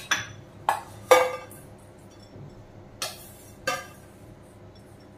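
A stainless steel bowl and spoon clinking and knocking against a glass bowl as fried potato fries are tipped and scraped into it. There are about five sharp clinks, the loudest about a second in with a short ring, and two more near the three- and four-second marks.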